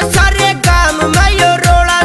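Loud dance music with a heavy, booming bass beat, about two beats a second, under a stepping melody line.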